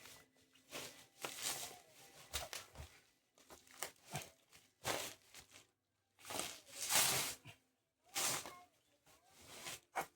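Packaging being torn and rustled in irregular short bursts with brief pauses between them. The loudest tear comes about seven seconds in.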